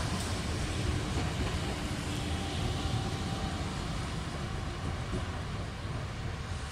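Trenitalia ALe 501/502 Minuetto electric multiple unit rolling along the station tracks. Its low steady rumble of wheels and running gear slowly fades as it moves away.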